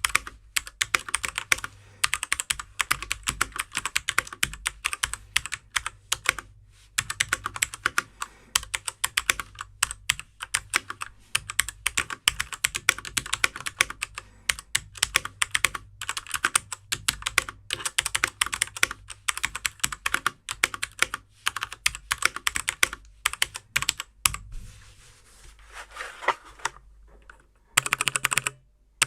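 Typing on a Machenike K500 mechanical keyboard with brown tactile switches and PBT keycaps: a fast, steady stream of key clacks. The typing eases into a short lull near the end, then picks up again.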